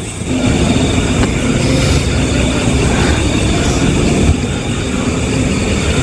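Road traffic: motor vehicles running past on a main road, a steady engine noise.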